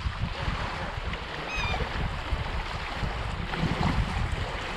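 Wind buffeting the microphone over small waves lapping against a rocky lakeshore, with a brief high chirp about one and a half seconds in.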